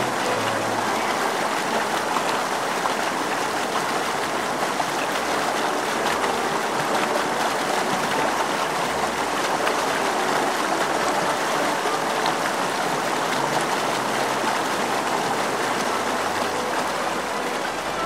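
Shallow mountain stream rushing and splashing over rocks, heard close at the water's surface: a steady, even rush of water.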